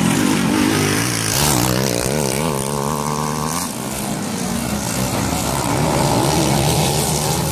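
Several motocross dirt bikes racing past, their engines revving up and down as the riders work the throttles, overlapping most strongly a second or two in.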